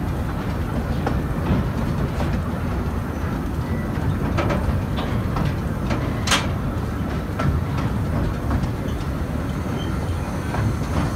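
Narrow-gauge railway carriage running slowly, heard from on board: a steady low rumble with irregular clicks of the wheels over the rail joints, and one sharp clank about six seconds in.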